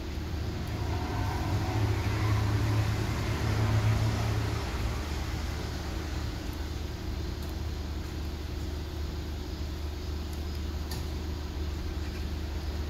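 Steady low engine hum, swelling louder between about one and five seconds in, then settling back to an even level.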